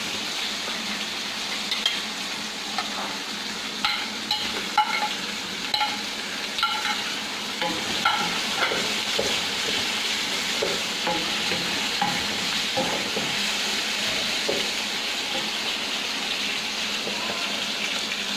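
Chopped onions, garlic and green chillies sizzling as they fry in a metal karahi, with a wooden spatula stirring and knocking against the pan. The knocks come often for the first dozen seconds, then only the steady frying hiss remains.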